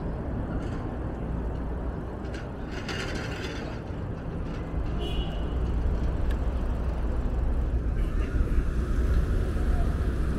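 Busy city street traffic heard while riding a bicycle: a steady low rumble of engines and road noise that grows louder about halfway through, with a brief high squeal about five seconds in.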